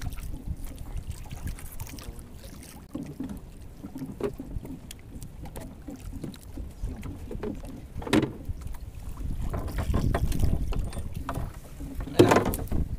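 Wind buffeting the microphone over water lapping against a small boat's hull, with light knocks and rustles as fishing line is handled. There are two louder bumps, one about eight seconds in and one near the end.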